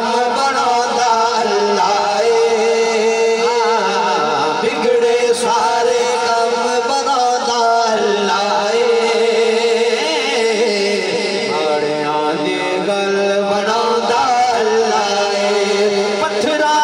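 Naat recitation: a man chanting a devotional song in long, wavering sung phrases, with no steady beat.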